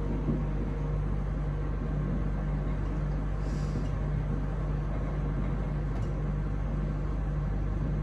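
Steady low room hum, with one faint scratch of a marker on a whiteboard about three and a half seconds in.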